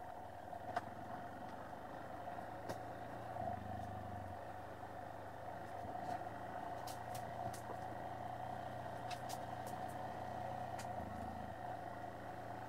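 Yamaha Serow 250's air-cooled single-cylinder engine running steadily at low revs as the bike moves along a rough forest track, its low note shifting slightly a couple of times, with scattered sharp clicks.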